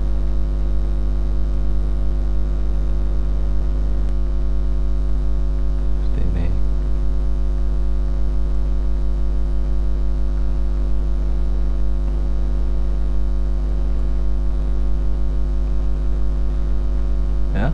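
Steady electrical mains hum with a stack of higher buzzing overtones, loud and unchanging, from the recording setup. A brief faint vocal sound about six seconds in.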